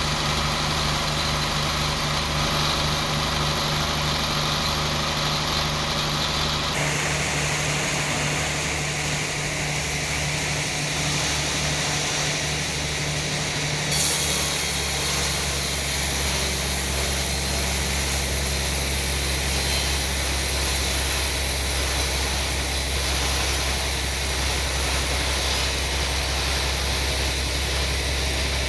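Sawmill machinery running with a steady engine-like hum. The sound changes abruptly twice, about a quarter and halfway in.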